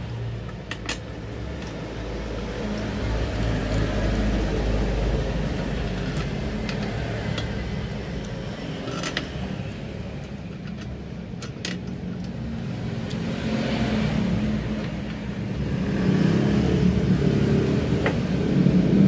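Motor vehicles passing on a road, a low rumble that swells and fades several times, with a few light clicks and taps from handling a plastic motorcycle grab bar and its fittings.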